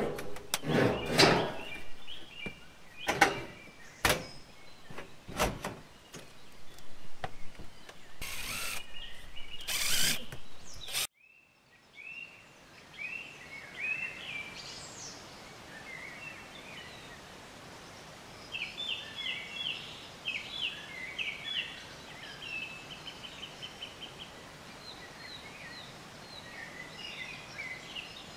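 Loud irregular knocks and bangs for about eleven seconds, with two short rushing noises among the last of them. Then, after an abrupt cut, birds chirping and singing, including rapid trilled phrases, over a steady outdoor background.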